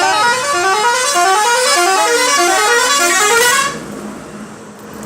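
Electronic tune of short buzzy notes stepping up and down in a repeating pattern, played loudly and cutting off suddenly about three and a half seconds in.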